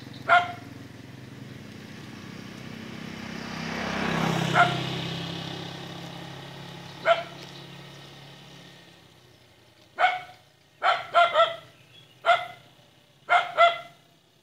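A dog barking repeatedly, about ten short barks, coming faster in the last few seconds. Under them a passing vehicle grows louder to a peak about four seconds in, then fades away.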